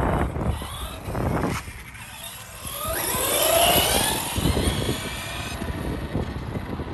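Team Corally Sketer 4S electric RC truck driving at speed on asphalt, its motor whine rising as it passes close about three seconds in and falling away as it speeds off. Gusty wind on the microphone early on.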